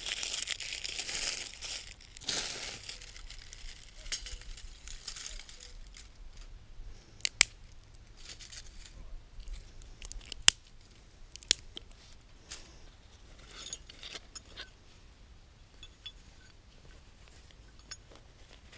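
Dry leaves and twigs crunching and crackling as they are gathered by hand, followed by a folding metal pocket stove being assembled: sharp metallic clicks and clinks as its plates are slotted together, with light handling rustle between them.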